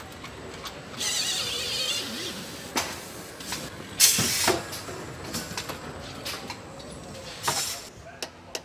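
Car assembly line tooling: bursts of compressed-air hiss, one about a second long near the start, a loud short one midway and another near the end, with scattered clanks and clicks of metal tools.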